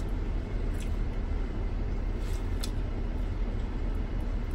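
Steady low rumble inside a minivan's cabin, like a vehicle running at rest, with a few faint clicks.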